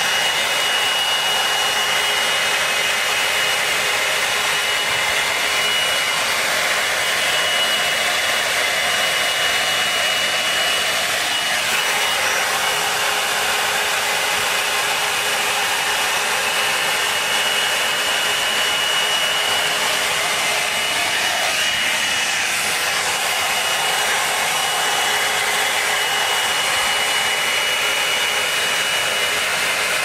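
Drybar Double Shot Oval blow-dryer brush running continuously: a steady rush of hot air from its fan with a thin high whine held over it.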